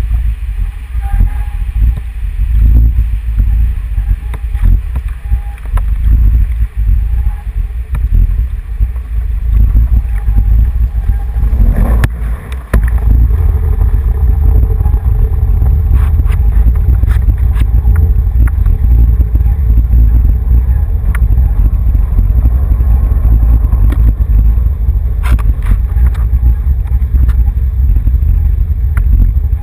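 Conveyor-belt boat lift carrying a kayak uphill, a loud low rumble with scattered clicks and knocks. About halfway through it dips briefly, then runs steadier and louder.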